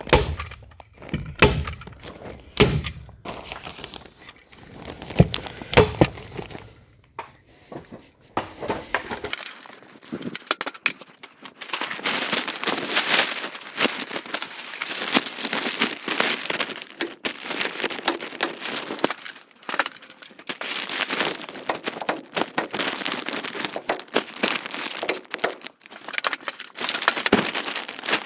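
Polyethylene plastic sheeting crinkling as it is handled and pulled into place, with several sharp clacks of a hand stapler firing staples during the first several seconds.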